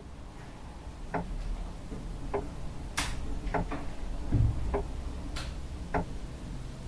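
Slow, even clock ticking, one tick about every second and a quarter, over a low steady hum, with a couple of sharper clicks and a dull low thump in between.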